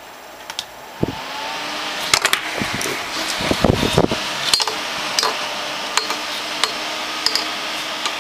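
Scythe Slipstream case fan spinning up about a second in and then running steadily at about 1900 RPM, a strong airy whoosh with a low hum under it. Several sharp knocks and clicks come through the middle as the fan is handled.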